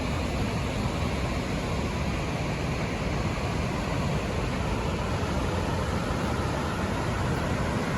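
Steady rushing of water released below Allatoona Dam into the Etowah River, a constant even roar without breaks.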